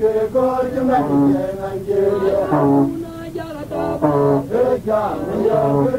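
A man singing in a chanting style, in short, repeated phrases.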